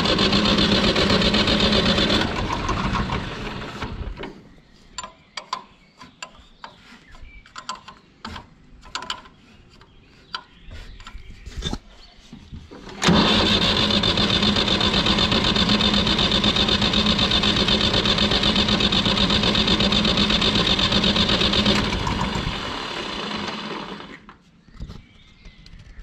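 Fiat 480 tractor's three-cylinder diesel being turned over on the electric starter with its injector lines cracked open to bleed air from the fuel system, not catching. A short crank of about two seconds, then scattered clicks and knocks, then a longer crank of about nine seconds that drops off and dies away.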